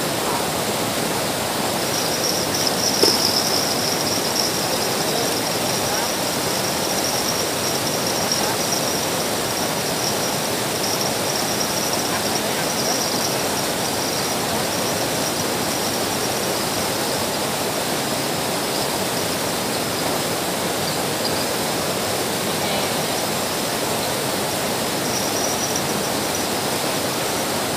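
Steady rushing of flowing water, with insects chirring in one high, steady tone over most of it and a single light click about three seconds in.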